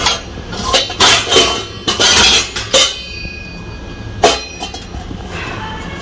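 Stainless-steel pots and a kadhai knocking and clinking against each other in a dishwasher rack: a run of sharp metal knocks, one leaving a ringing tone about three seconds in, the sharpest a little after four seconds.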